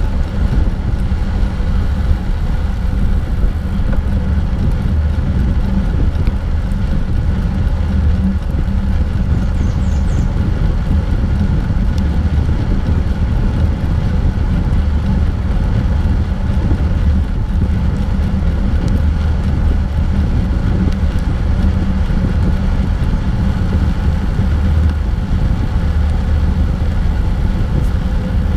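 Steady low rumble of wind buffeting a bike-mounted GoPro's microphone while riding, mixed with bicycle tyres rolling on asphalt.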